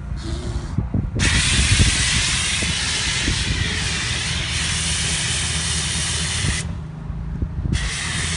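Pressure-washer snow-foam lance spraying foam onto a car with a loud, steady hiss. A short burst comes first, then a long spray that stops for about a second near the end and starts again.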